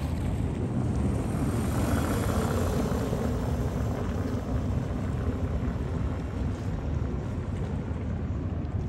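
Steady low rumble of distant engines, swelling slightly about two seconds in.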